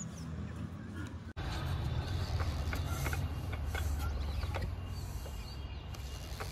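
Fieldmarshal Lister-type single-cylinder diesel engine being hand-cranked with its starting handle for a hard cold start: irregular clicks and clanks from the handle and flywheel over a low rumble. The sound breaks off abruptly just over a second in and comes back louder.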